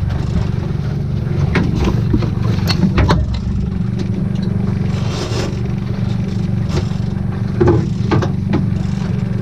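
A boat's engine running steadily, with scattered clicks and knocks.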